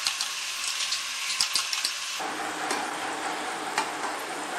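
Spring rolls deep-frying in hot oil: a steady sizzle with many sharp crackling pops. About two seconds in the sizzle suddenly changes to a steadier, fuller hiss with only an odd pop.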